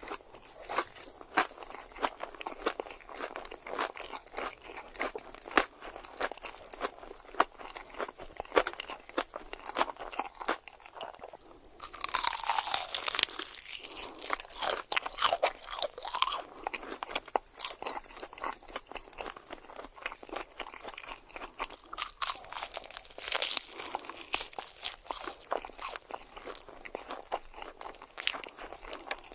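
Close-miked eating sounds: crunchy bites and rapid, crackly chewing that go on throughout, growing louder and denser for a few seconds around the middle.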